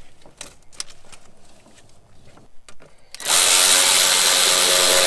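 A handheld power tool runs at a steady speed for about three seconds, starting a little past halfway through. Before it come faint clicks and knocks of parts being handled.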